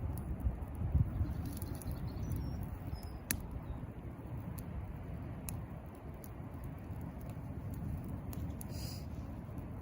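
Fire crackling: a steady low rumble of burning with scattered sharp pops and snaps, the sharpest about three seconds in.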